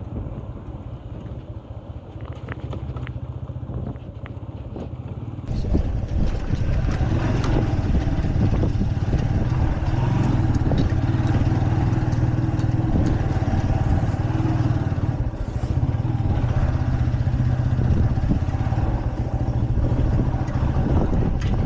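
KTM motorcycle engine running while riding, under rushing wind noise on the microphone. The sound jumps suddenly louder about five and a half seconds in.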